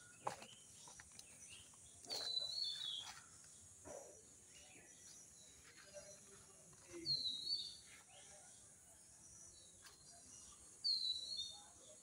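A bird calling three times, each a short falling phrase about four to five seconds apart, over a steady faint high hiss.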